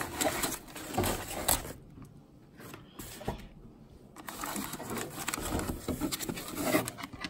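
Plastic packaging bags crinkling and rustling, with packing foam rubbing and light knocks, as bagged filament spools are pulled out from under the 3D printer's build platform. The rustling comes in irregular spells, with quieter pauses about two seconds and three and a half seconds in.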